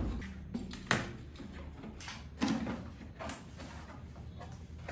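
Cardboard packing scraping and rustling as a cardboard sleeve is pulled off a welding machine, with a few sharp knocks, the clearest about a second in and again around two and a half seconds in.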